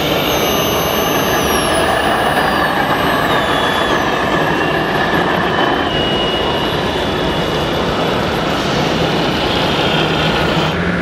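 Electric whine of a scale RC truck crane's hydraulic pump, stepping down in pitch over the first few seconds as the Palfinger loader crane slews, over a steady loud rushing noise.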